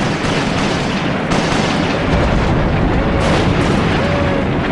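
Anti-aircraft guns firing in a continuous barrage of booms and rumbling shots, with sharper reports about a second in and again around three seconds in.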